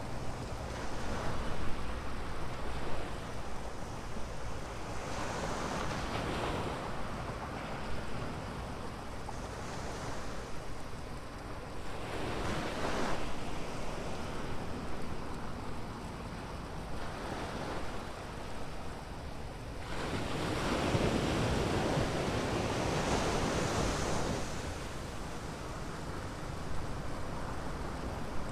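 Ocean waves breaking and washing up a sandy beach, the surf rising and falling in swells every few seconds, with the longest and loudest swell about two-thirds of the way in.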